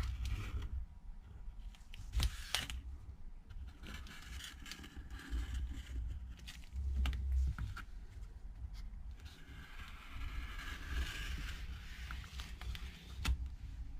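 Light scrapes and scattered clicks of hands and tools working on an iPad's frame at a bench, with a few sharper clicks about two seconds in and near the end.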